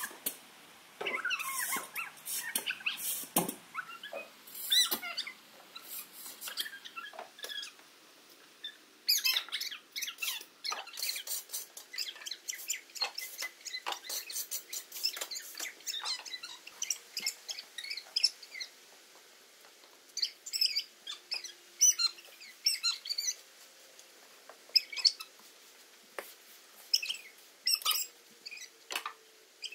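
Straw bedding rustling and crackling in irregular, scratchy bursts as a horse stall is mucked out with a fork.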